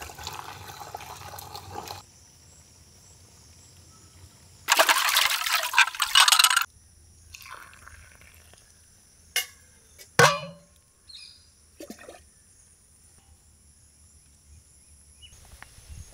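Tea pouring and splashing for about two seconds, then a few sharp knocks as a glass and a leaf plate are handled. A faint steady high-pitched hum runs underneath.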